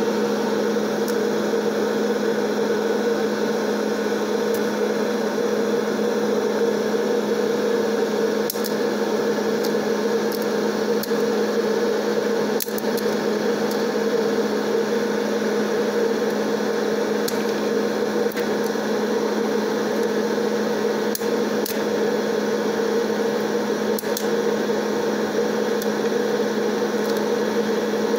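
1200-watt electric hot-air popcorn popper running with a steady fan-and-heater drone, while kernels pop sporadically: scattered sharp cracks, a dozen or so, spread through.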